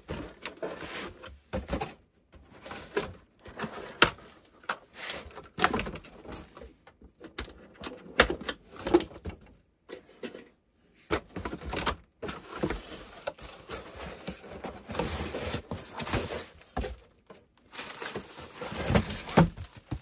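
Plastic wrap crinkling and cardboard rustling as hands shift the packaging in the box, in irregular bursts with sharp clicks.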